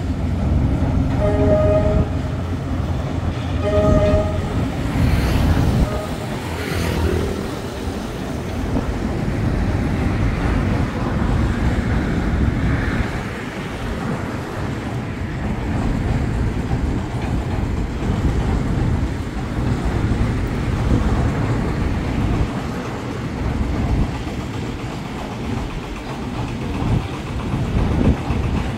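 Freight train crossing a steel truss bridge: a few short horn blasts in the first four seconds, then the steady noise of the container wagons rolling across the bridge.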